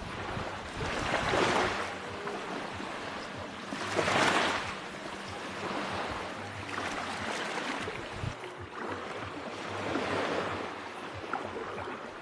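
Ocean waves breaking and washing on a beach, the surf swelling and falling in surges every few seconds, the loudest about four seconds in.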